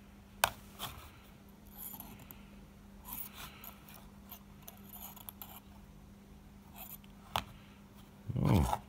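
Small metal clicks and faint scraping from tools working a freshly wrapped coil on a rebuildable atomizer's deck, with two sharper clicks, one about half a second in and one about seven seconds in. A short vocal murmur near the end is the loudest sound.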